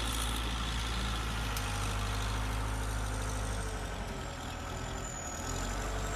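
Skid steer engine running steadily with a low, even hum.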